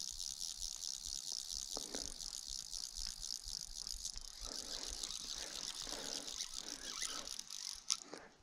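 Fly reel's click-and-pawl ratchet clicking rapidly and steadily as line runs on the reel, with a sharp click and an abrupt stop near the end.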